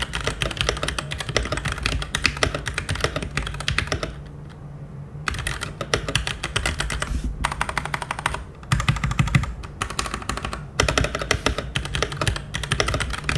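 Typing on a Keychron mechanical keyboard with tactile Gateron Brown switches: a fast run of key clacks, quieter than clicky blue switches, with a pause of about a second partway through.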